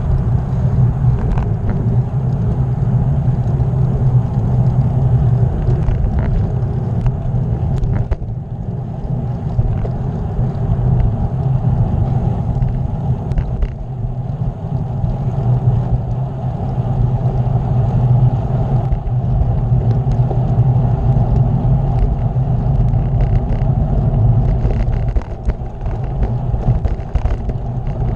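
Steady wind rumble on the microphone of a bicycle-borne camera while riding on the road, easing slightly a few times.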